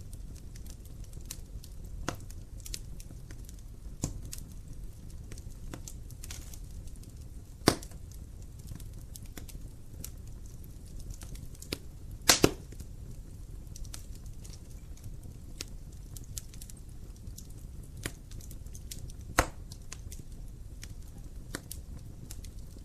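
Fire crackling in a fireplace: irregular small crackles with a few sharp pops, the loudest about 8, 12 and 19 seconds in, over a low steady rumble.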